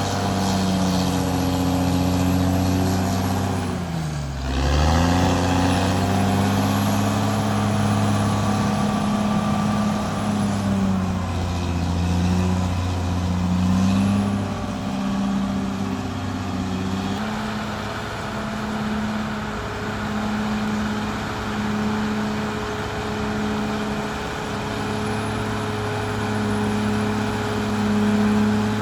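Caterpillar D6R XL bulldozer's diesel engine running steadily while the dozer works. About four seconds in, the engine pitch dips sharply and then recovers.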